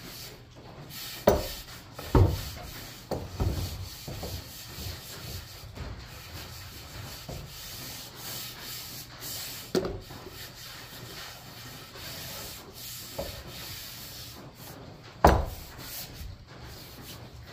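A hand rubbing oil into a wooden axe handle: a steady rubbing hiss, broken by a few sharp knocks, the loudest about fifteen seconds in.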